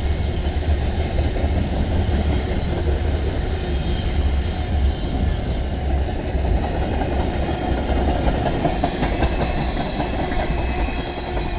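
Freight cars of a CN freight train rolling past on the rails, a steady heavy rumble of wheels on track that eases off slightly near the end as the train's tail approaches.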